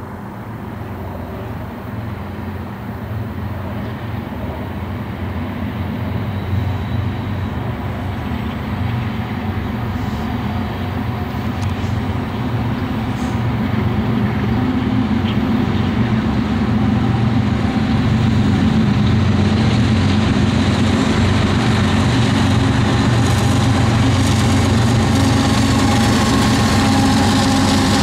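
Union Pacific diesel-electric locomotives hauling a coal train approach, their low engine drone growing steadily louder and then holding loud as the lead units draw level.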